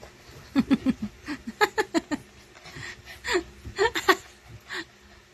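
A person laughing in a quick run of short bursts, then a few more laughs near the end.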